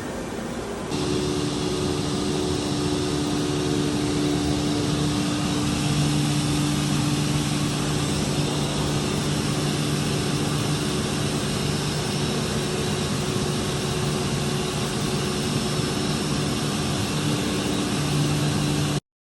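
CNC milling machine running, a steady mechanical drone with several held tones. It steps up in level about a second in and cuts off abruptly near the end.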